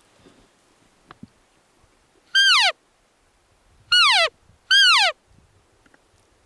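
Three loud cow-elk mews, each a short pitched note sliding steeply down. The first comes about two seconds in and the last two come close together.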